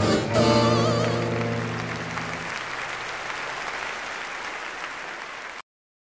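A final operatic chord held with a warbling vocal note over it, fading out, followed by audience applause that stops abruptly near the end.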